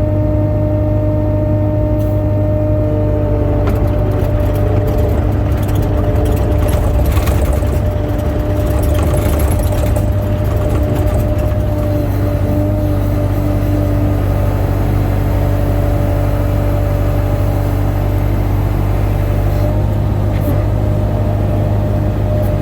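Skid steer's diesel engine running steadily under load, with a strong low hum and a few steady higher tones.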